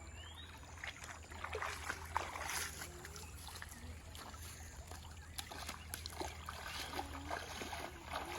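Water splashing and trickling, with many irregular small splashes over a steady low rumble.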